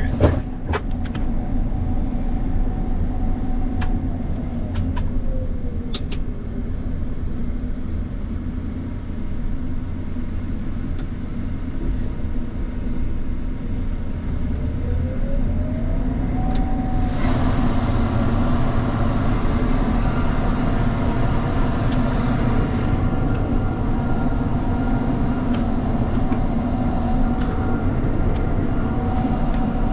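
Diesel engine of heavy harvest machinery running steadily under load, with a whining tone that slides down about five seconds in and back up near the middle. A few sharp clicks, and a hiss that comes in partway through and stops again.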